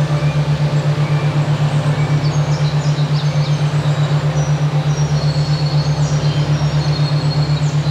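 A steady low hum that pulses evenly about six times a second, the beating tone of a binaural-beat track, under faint high bird chirps and whistles.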